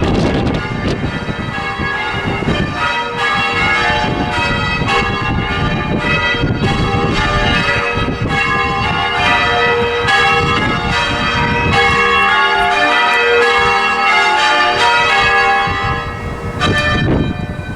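A ring of church bells rung in English change-ringing style, the bells striking one after another in a rapid, continuous sequence, with their tones overlapping and ringing on.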